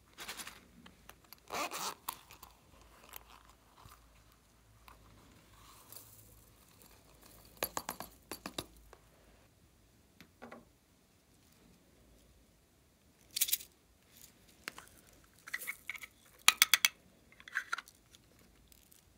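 Small plastic containers and packaging being handled and opened: bursts of sharp plastic clicks and crackles, a few seconds apart, with quiet gaps between.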